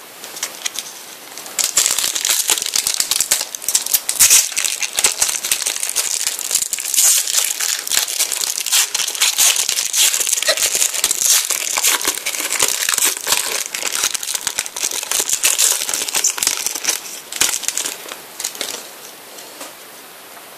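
Foil wrapper of a Prizm trading-card pack crinkling as it is torn open and handled. The dense crackle starts about a second and a half in and thins out near the end.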